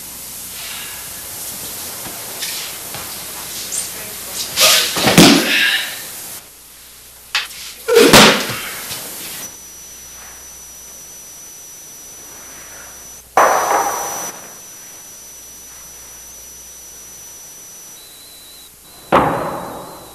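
Bodies hitting the dojo mat as aikido partners are thrown and take breakfalls: four bursts of thuds and slaps a few seconds apart, the loudest about five and eight seconds in.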